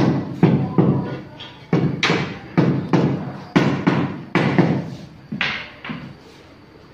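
Rubber mallet tapping a large ceramic floor tile down into its mortar bed to bring it level: about a dozen firm blows, roughly two a second, stopping near the end.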